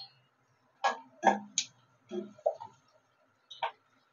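About seven irregular clicks and knocks in an aluminium kadai as peanuts go into the oil with cashews and dals, and a metal slotted spoon works against the pan.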